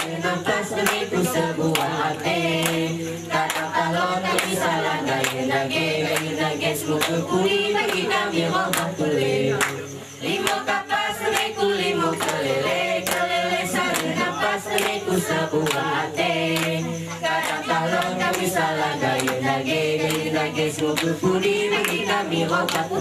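A group of girls' voices chanting a mesekat song in the Alas language in unison, a cappella, with steady rhythmic hand clapping; the singing pauses briefly about ten seconds in.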